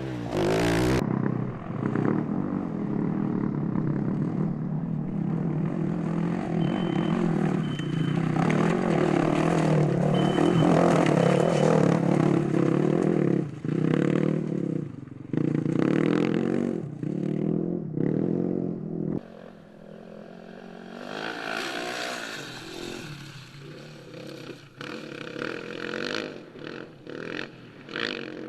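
Rally vehicle engines running hard over rough ground, in several abrupt shots. About two-thirds of the way in the engine noise drops away, leaving quieter rattling and scraping.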